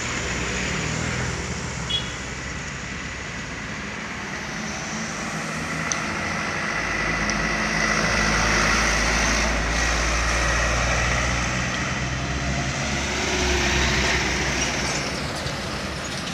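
Light trucks driving past one after another, a steady engine drone with tyre and road noise that swells as each truck passes, loudest about halfway through and again near the end.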